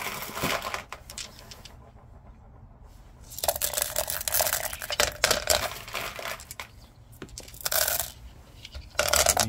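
Tumbled agate and carnelian stones and small white media pellets dropped by hand into a rock-tumbler barrel, clicking and clattering against each other and the barrel in several bursts, with a quieter pause of a second or two early on.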